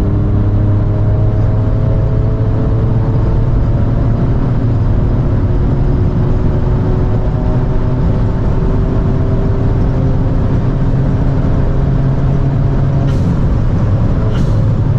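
Turbocharged 1.0 three-cylinder engine of a Stage 2 tuned Volkswagen Up TSI with a dual exhaust, running steadily under light load with its pitch slowly rising. Near the end, after it eases off, come two brief high hisses, typical of the turbo's blow-off 'sneeze' on lift.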